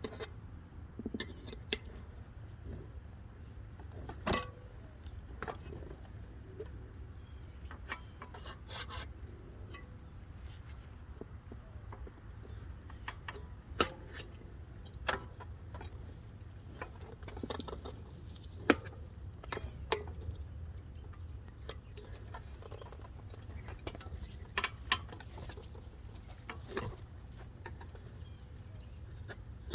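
Irregular clicks and knocks of metal tire spoons and hand work on a motorcycle wheel rim as a front tire is levered on by hand, over a steady high-pitched whine and a low background rumble.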